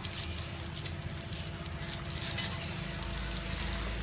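Gloved hands tossing pieces of fried tofu with sauce in a stainless steel bowl, making an irregular, continuous rustling and squishing.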